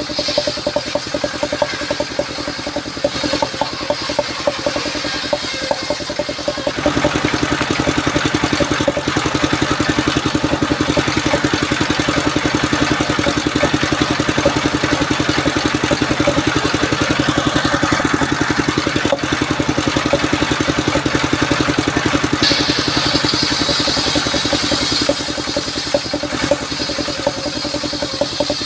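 Engine-driven mobile circular sawmill running. About seven seconds in, the blade bites into sengon (albizia) wood and cuts steadily for some eighteen seconds with a louder, rushing sound, then falls back to the engine running alone near the end.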